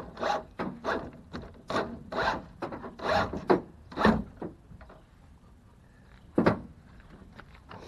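Irregular scraping and rubbing as a heavy electrical cable is handled against a homemade wooden stripping rig: a dozen or so short scrapes, then a lull and one more scrape about six and a half seconds in.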